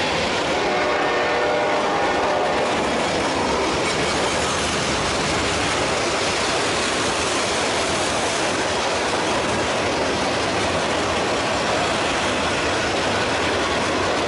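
Freight cars of a mixed manifest train rolling past close by: the steady, loud noise of steel wheels running on the rails.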